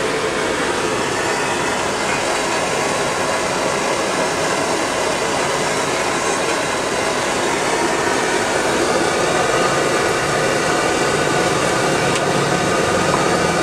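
High-pressure gas wok burner running under a wok: a loud, steady, even rushing noise.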